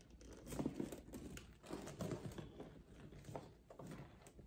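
Faint rustling and crinkling from a handbag being handled and set down on a table, coming and going several times.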